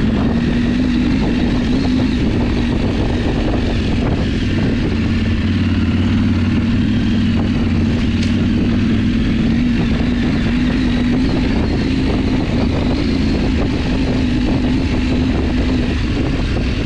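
Motorcycle engine running steadily at low speed, a constant drone that wavers slightly in pitch.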